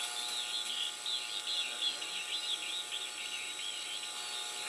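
Audio of a homebrew 40-metre (7 MHz) regenerative receiver: static with several steady whistles under it, and a warbling, chirping signal that keeps wavering in pitch.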